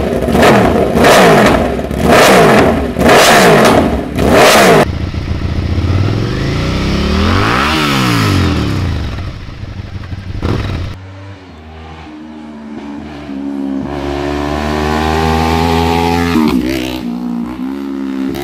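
Motorcycles on SC Project aftermarket exhausts. First a Yamaha R1's inline-four is blipped sharply five times. Then a Suzuki SV650's V-twin revs up and back down, and after a cut about eleven seconds in, a Kawasaki Ninja 300's parallel twin accelerates along a road, its pitch climbing and then holding.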